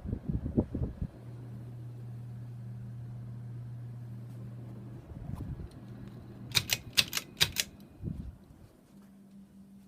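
Hampton Bay Bridgeton ceiling fan running with a steady motor hum. About six and a half seconds in comes a quick run of five sharp clicks, and near the end the hum grows fainter.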